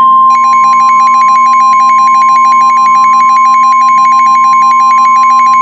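Emergency Alert System attention signal: a loud alert tone that comes in suddenly, a steady high tone near 1 kHz with a fast pulsing warble of other tones over it, announcing the next warning.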